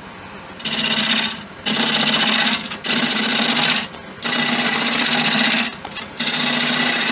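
A turning gouge cutting the outside of a spinning acacia bowl blank on a wood lathe: five loud, hissing cuts of about a second each, with short pauses between them in which the lathe runs more quietly. The first cut starts about half a second in, and the last runs on past the end.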